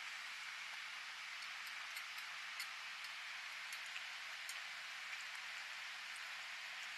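Two cats eating wet food from stainless steel bowls: scattered faint clicks of chewing and licking against the metal over a steady hiss.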